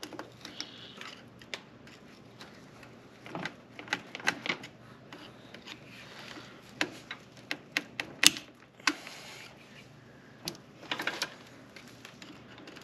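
Scattered sharp metallic clicks and clinks, some in short clusters, of tools and chain links as an old motorcycle drive chain is worked off the bike.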